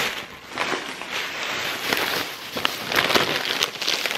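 Plastic grocery packaging being handled, rustling and crinkling in irregular bursts with small clicks.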